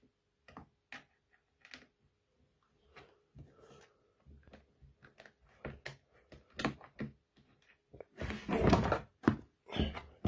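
Hand-handling sounds of a seatbox backrest frame being fitted: scattered light clicks and knocks of the metal tube and plastic bracket against the plastic box, then a burst of louder knocks and rattles near the end.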